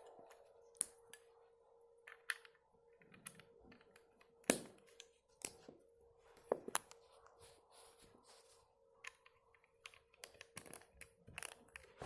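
Plastic LEGO bricks clicking and clattering as pieces are picked up and pressed together onto a build, in irregular sharp clicks over a faint steady hum.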